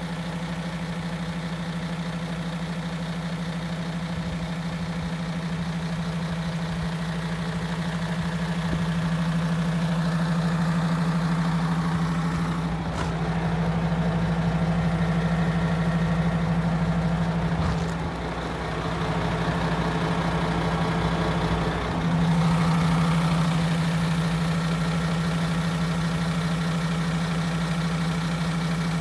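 MAN TGX 26.480 truck's straight-six diesel idling steadily, a constant low hum that swells and dips slightly a few times.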